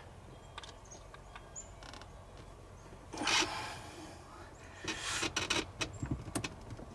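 Screwdriver working small, stiff Phillips-head screws on a jet ski carburettor's cable bracket: scattered clicks and scraping, a louder rasp about three seconds in, and a run of sharp clicks and scrapes near the end.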